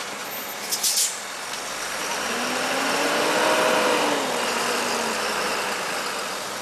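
Engine running while the stone block is hoisted, its pitch rising about two seconds in and easing back down near the end, over a steady background noise. A couple of sharp clicks sound about a second in.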